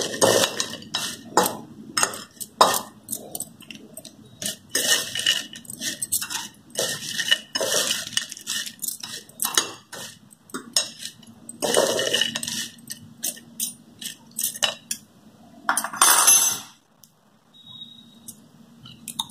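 Metal fork clinking and scraping on a ceramic plate, with the rustle of crisp fried peel chips being tossed in spices; it stops suddenly about 17 seconds in.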